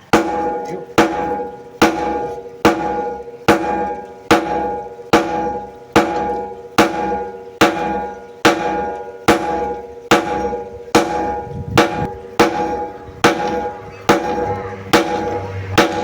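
Hand hammer striking steel on an anvil at a steady pace of just over one blow a second, each blow leaving a metallic ring, as a blade is forged from car leaf-spring steel.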